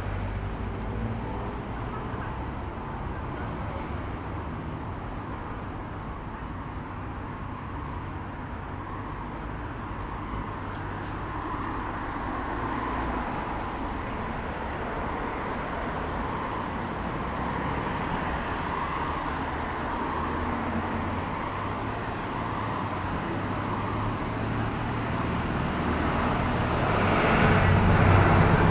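Road traffic going by steadily, with one vehicle coming close and passing near the end, where it is loudest.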